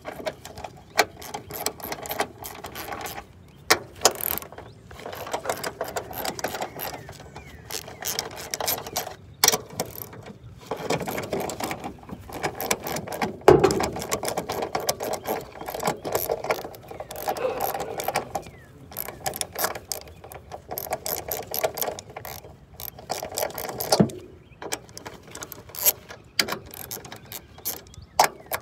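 Hand ratchet wrench with a 12 mm socket clicking in quick runs of back-and-forth strokes with short pauses between, loosening the nuts on a Nissan Sentra's upper strut mount. One louder knock about halfway through.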